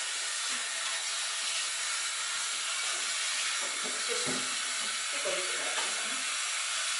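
Handheld shower head spraying water in a steady hiss onto a tiled shower floor and a wet kitten.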